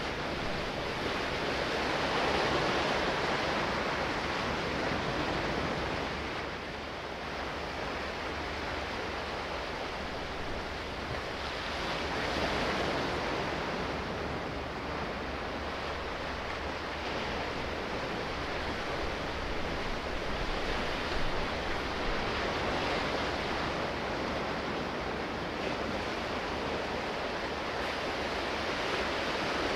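Sea waves washing in continuously, swelling and easing roughly every ten seconds.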